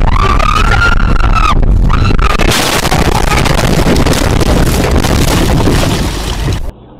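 Car crash heard from inside the car: high, sustained screaming over heavy road rumble, then about two and a half seconds in a loud, continuous crashing noise as the car leaves the road and its windshield shatters, cutting off suddenly near the end.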